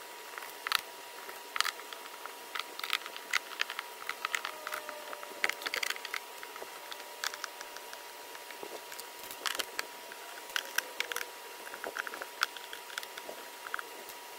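Hand screwdriver clicking and scraping as screws are backed out of the plastic housing of a Milwaukee M18 shop vac. Small metal screws clink down onto the wooden bench, giving irregular light clicks and taps, over a faint steady high whine.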